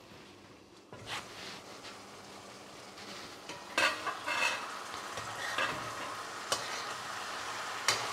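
Chicken wings sizzling as they brown in their own juices in a pot with no liquid added, stirred with a metal spoon. The sizzle grows louder about a second in, and the spoon scrapes and clacks against the pot several times.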